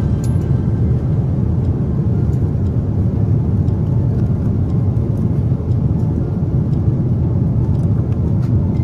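Airliner cabin noise in flight: a steady low rumble of engines and airflow.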